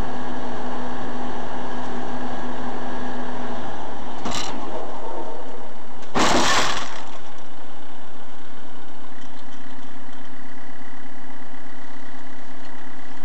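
Steady, loud vehicle engine and road noise picked up by a car's dash camera, with a steady tone that stops a little under four seconds in. There is a short sharp bang about four seconds in, then a louder impact about six seconds in that lasts around half a second.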